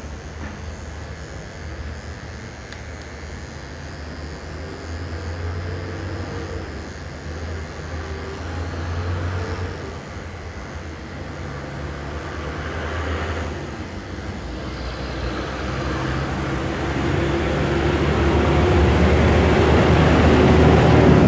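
Corded electric hair clippers buzzing steadily as they cut hair, getting louder near the end.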